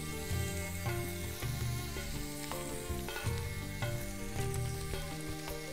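Lamb and lamb-tail fat sizzling in a kazan over a wood fire, a steady hiss with small pops. Background music with slow held notes plays under it.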